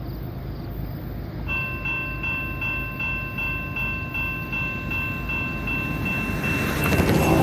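Railway grade-crossing bell starting about a second and a half in, ringing steadily a little over twice a second, over the low rumble of an approaching freight train. The rumble swells into a loud rush near the end.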